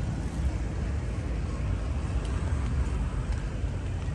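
Steady outdoor street ambience: a continuous low rumble of road traffic.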